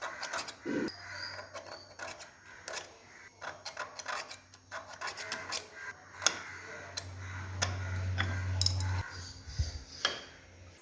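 Irregular sharp metallic clicks and taps, as of small metal parts being handled and knocked together, over a low steady hum that grows louder for a couple of seconds and then stops about nine seconds in.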